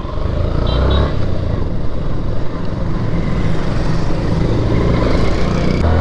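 Motorcycle pulling away and riding on, its engine running under load amid steady wind noise on the microphone. The sound swells over the first second.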